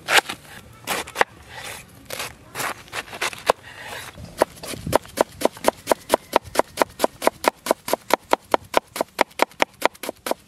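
Kitchen knife cutting a green cabbage on a wooden chopping board: a few scattered cuts at first, then from about four seconds in a steady run of quick shredding strokes, about four or five a second, each a short knock of the blade through the leaves onto the wood.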